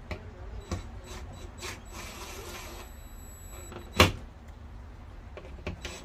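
Workshop handling noises: scattered clicks and knocks of tools and a board being moved, with a brief scraping about two seconds in and one sharp, loud knock about four seconds in.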